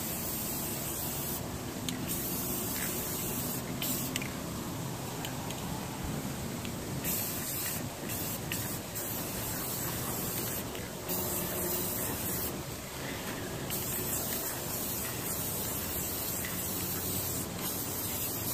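Aerosol spray paint can spraying in repeated bursts, some brief and some longer, the longest lasting about three seconds.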